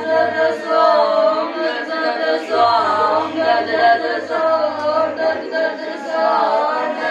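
A group of children and adults singing together in unison: a continuous chant-like song with no breaks.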